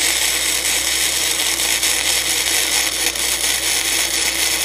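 MIG welding arc from a YesWelder MIG welder running gasless flux-core wire on eighth-inch steel, giving a steady crackling hiss. The arc is running well now that the wire speed has been turned down: "that's better".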